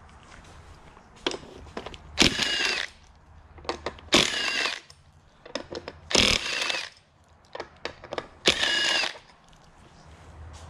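A power tool spinning bolts out of an engine being torn down, in four short runs about two seconds apart. Light clicks and clinks of tools and parts come between the runs.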